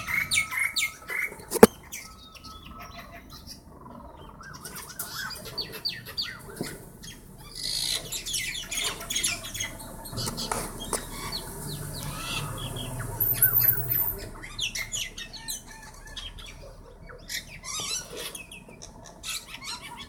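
Birds squawking and chirping in a scuffle, with wings flapping; a single sharp click about two seconds in.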